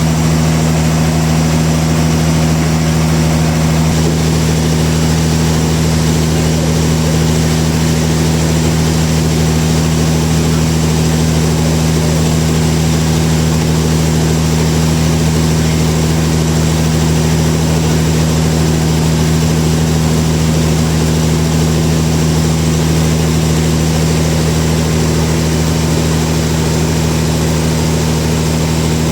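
Sawmill machinery running steadily at constant speed, a loud unchanging hum with a strong low tone.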